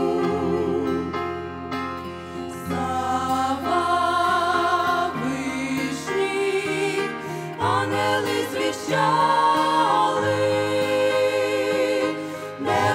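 Mixed vocal ensemble of men and women singing a Christmas carol in harmony into microphones. The notes are held with vibrato over low sustained notes that change chord every few seconds.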